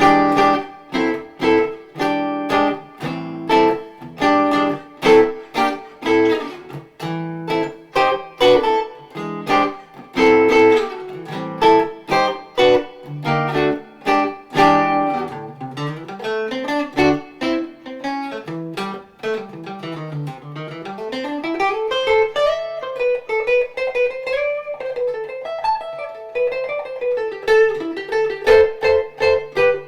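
Custom X-braced, 18-inch-wide archtop guitar (Theo Scharpach's 'OpusG') played solo in jazz style. Strummed chords run for about the first fifteen seconds, then give way to a single-note melody line running up and down the neck.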